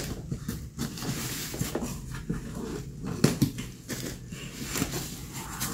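Cardboard shipping box being opened by hand: packing tape peeled and cardboard flaps scraped and bent, in irregular scratchy strokes with a sharp knock about three seconds in.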